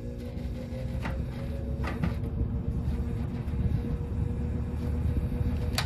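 1968 General Electric W-22 box fan starting up: a steady motor hum with the air noise building as the blade comes up to speed, and a few sharp ticks. The resonating sound comes, in the owner's view, from something on the cage rather than the motor.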